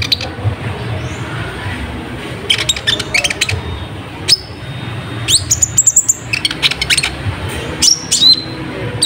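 Kolibri ninja (ruby-cheeked sunbird) singing: clusters of rapid, high chirps broken by sharp, rising whistled notes.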